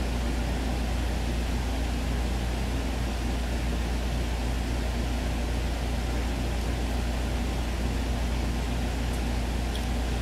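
Steady background noise: a low hum with an even hiss above it, unchanging throughout, with a couple of faint clicks near the end.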